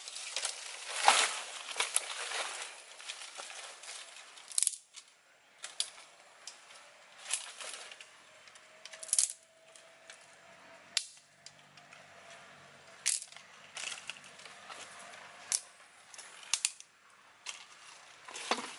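Dry sticks and twigs clacking and cracking as they are handled and laid down by hand to build a small fire, in sharp separate snaps every second or so. In the first few seconds, bare feet step and rustle through dry leaf litter.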